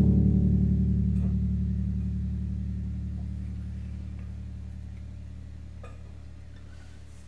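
A low chord on a stage piano, struck once and left to ring, fading slowly over about seven seconds with a slight wavering pulse.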